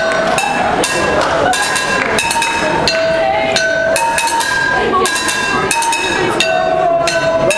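Junk percussion: drumsticks beating a quick run of strikes on upturned plastic buckets and on metal pots and mixing bowls, the metal ringing on after many of the hits.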